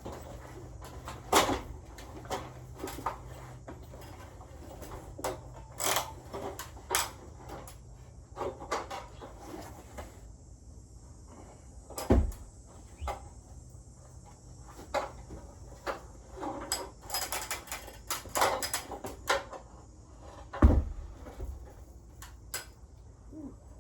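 Irregular knocks, clatter and scrapes of a carpenter setting up and climbing onto a steep roof, with two heavier thumps about twelve and twenty-one seconds in.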